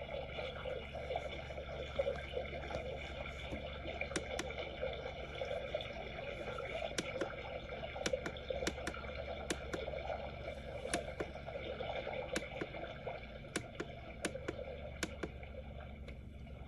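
Trickling water, a steady gurgle with many small sharp drips and splashes scattered through it, over a low hum.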